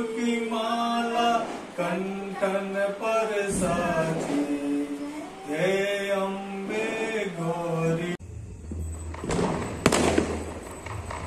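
A voice singing a devotional melody in long held notes for about eight seconds. Then the sound cuts abruptly to a low hum, with a couple of sharp clicks and a short fizz as a lighter is struck at a small firecracker's fuse.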